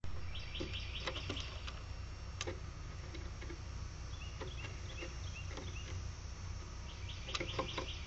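Small songbirds chirping in quick runs of short high notes, three runs in all, with a few sharp taps in the first few seconds, over a low steady background rumble.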